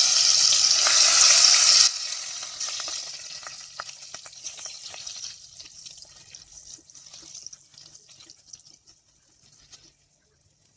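Green chillies and chopped ginger sizzling loudly in hot oil with cumin seeds in a pressure cooker. The sizzle drops off sharply about two seconds in, then dies away to faint scattered crackles as a spatula stirs, and is almost gone near the end.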